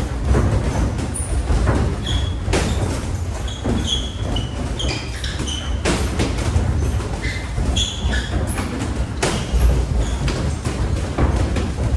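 Athletic shoes squeaking on an indoor court floor, many short high squeaks scattered through, with several sharp thuds and a steady low rumble underneath.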